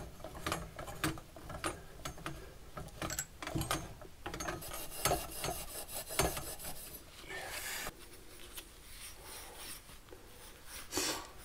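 Copper water pipe being cut by hand under a boiler: a run of rasping, scraping strokes with small clicks, including a longer continuous scrape midway through.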